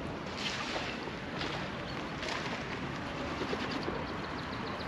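Birds calling, with faint, rapid chirps over steady background noise.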